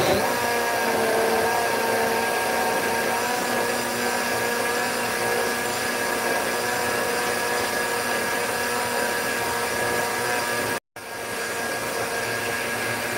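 Personal single-serve blender running steadily at an even pitch, blending a green smoothie; the sound cuts out for an instant about eleven seconds in, then carries on.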